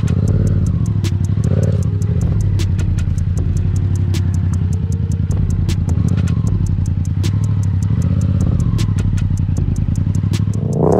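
Yamaha FZ-07's 689 cc parallel-twin engine running at low, steady revs as the bike rolls along slowly, with a rapid, light ticking over the engine note. The revs rise right at the end.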